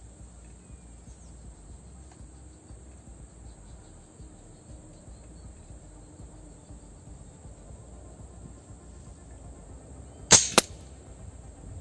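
PCP air rifle with a moderator firing one shot about ten seconds in: a sharp crack followed a quarter second later by a second sharp crack.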